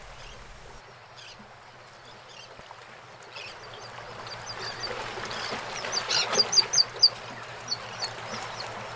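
Bay water lapping, with seabirds calling: a quick run of short, high calls starts about six seconds in.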